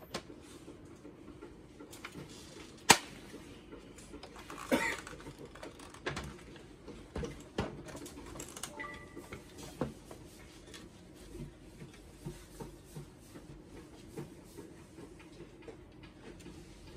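Hard plastic clicks and knocks from a card printer's opened housing and internal parts being turned over and handled, with a sharp knock about three seconds in and a small cluster of knocks just before the five-second mark, over a steady low hum.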